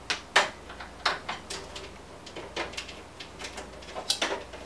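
Irregular sharp clicks and knocks of a screwdriver and hands working against a PC case's metal frame and case fan, as the fan is being unscrewed. The loudest knocks come about half a second in and again near the end.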